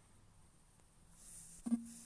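Near-quiet room tone in a pause between speech, with a soft hiss and, near the end, a single click followed by a brief low hum.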